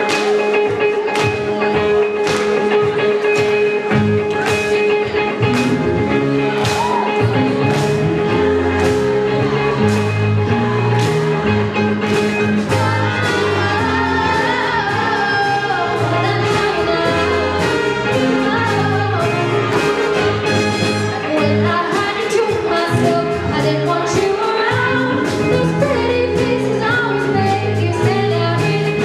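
A high school jazz band playing a dance number live, with singing: drums keep a steady beat under a moving bass line and horns.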